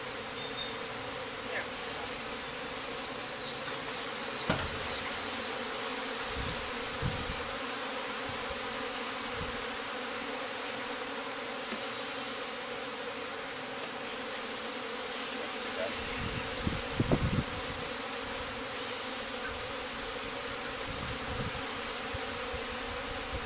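Honeybees buzzing steadily around an opened hive, the air thick with flying bees. A few dull knocks come through as the wooden hive boxes are handled, one about four seconds in and a short cluster about two-thirds of the way through.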